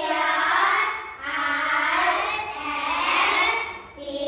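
A group of young children singing together in unison, in sung lines separated by short breaks.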